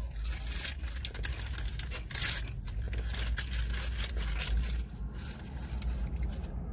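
Paper towel and food paper crinkling and rustling in quick, irregular bursts while corn on the cob and chicken are handled and eaten, over a low steady rumble.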